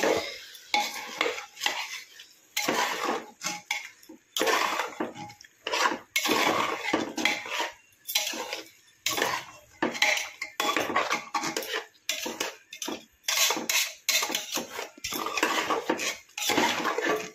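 A ladle scraping and stirring mutton, onions and masala around a pressure cooker pot in quick, irregular strokes against its sides and bottom. The masala-coated meat is being fried down (bhuna).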